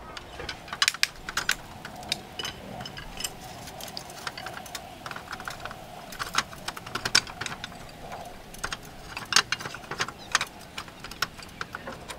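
Clay roof tiles clinking and clacking against each other as they are handled and laid onto the roof battens: a string of sharp, irregular clicks, some louder knocks among them.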